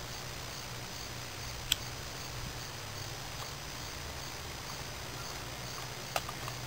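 Faint outdoor background: a steady hiss and low hum with faint high, evenly pulsing chirps, broken by two sharp clicks, about two seconds in and near the end. The distant approaching train is not clearly heard.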